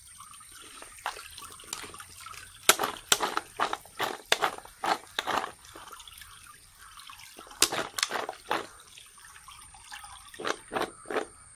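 Cut cassava pieces being washed in a steel bowl: water sloshing and splashing as the pieces are rubbed and the water is tipped off into a plastic basin. It comes in runs of quick splashes, the loudest about three seconds in and again about eight seconds in.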